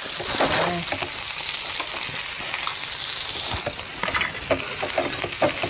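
Food sizzling in a hot pan on a gas stovetop, with a fork stirring and scraping through mashed potato and butter in a pan. A few light clicks and rustles come near the end.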